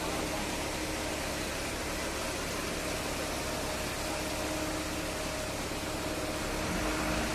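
An engine running steadily, a low even hum under a broad hiss, growing slightly louder near the end.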